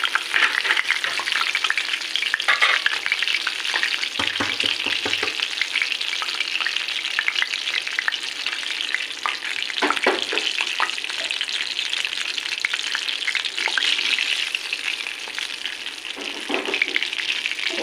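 Oil sizzling and crackling in a black iron kadhai as cumin seeds, whole dried red chillies and curry leaves fry for a tadka (baghar). A spoon stirs through it, with louder scrapes against the pan about ten seconds in and near the end.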